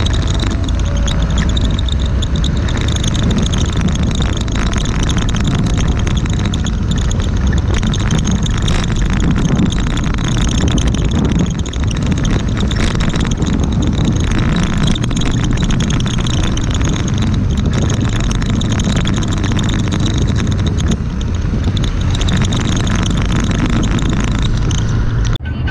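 Traffic noise close behind a concrete mixer truck: a steady diesel engine running low, with road and wind noise. It drops out for an instant near the end.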